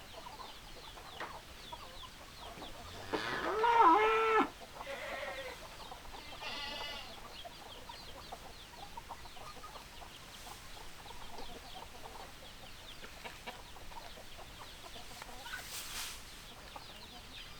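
Chickens clucking softly throughout, with one loud drawn-out call rising and wavering in pitch about three seconds in, and a shorter rapid call a few seconds later.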